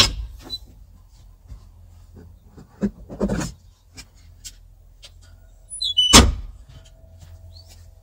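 Metal clanks and scrapes from hand tools on a skid steer's hydraulic hose fittings while a loose fitting is tightened. A sharp knock comes at the start, a couple of knocks and a short rasp come about three seconds in, and the loudest, longer clank comes about six seconds in, with small clicks between them.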